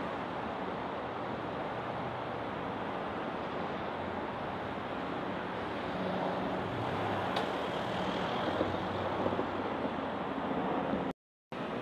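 Road traffic on a city street: cars and a van driving past, with a steady wash of tyre and engine noise that grows a little louder about halfway through. There is a brief click in the middle, and the sound cuts out for a moment near the end.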